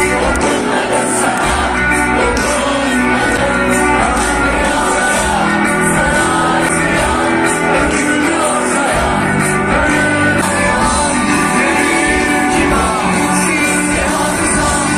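Live band music with singing, played over a concert PA and picked up by a phone from within a large crowd.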